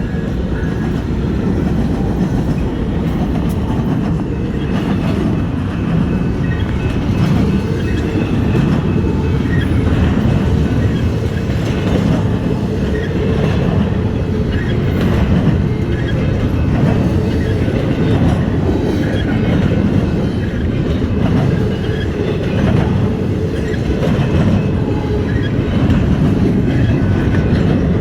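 Eastbound Norfolk Southern train passing close by: a loud, steady rumble of cars rolling over the rails, with continuous wheel clatter.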